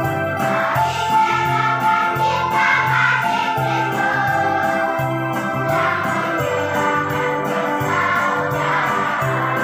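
Children's choir singing a Christmas song in unison, over instrumental accompaniment with a repeating bass line and a steady beat.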